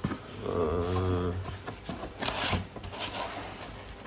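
Cardboard box and packaging rustling and rubbing as the contents are handled and searched, with a short hum early on.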